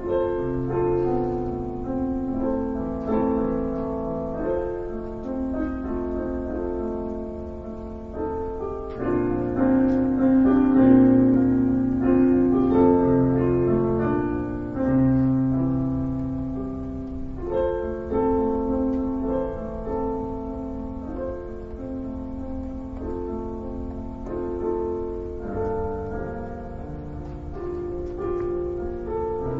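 Solo piano playing long held chords, swelling louder about ten seconds in and easing off again.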